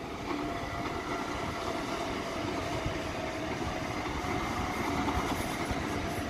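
Sydney Trains double-deck electric passenger train passing, wheels running on the rails with a steady high whine held over the rumble. It grows a little louder toward the end.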